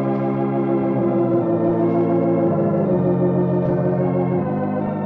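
Organ theme music: held chords with no gaps, moving to a new chord a few times.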